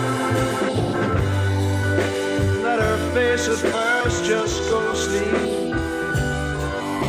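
Background music: a song with sustained bass notes changing about once a second under a wavering melody line.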